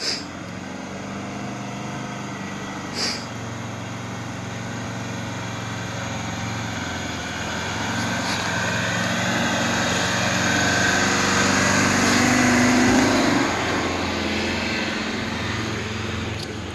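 A four-wheel-drive's engine labouring steadily as it climbs a steep dirt track, growing louder as the vehicle comes up the hill, peaking about thirteen seconds in, then easing. A brief sharp high sound is heard at the start and again about three seconds in.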